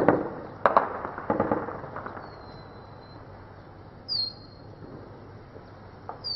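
Gunshots: several sharp echoing cracks in the first second and a half, then quieter, with a bird chirping a few times, short high calls.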